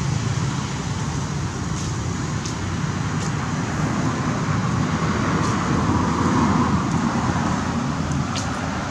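Road traffic: a steady rumble with a vehicle passing, swelling about five to seven seconds in.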